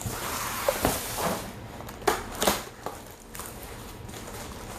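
Cardboard and plastic packaging rustling and crackling as the keyboard box is opened and handled, with several sharp knocks and creases through the first three seconds or so.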